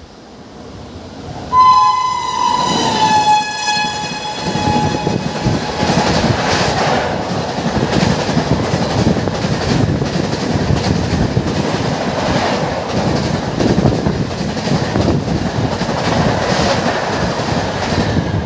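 Air horn of a WAP-7 electric locomotive, sounded once for about three seconds as the express approaches, its pitch dropping a little as it passes. Then the steady rumble and clatter of the passenger coaches rushing past at speed.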